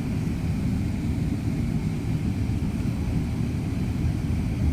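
Jet engines of a Boeing 777-300ER, GE90-115B turbofans, running with a steady low rumble and a faint high tone above it.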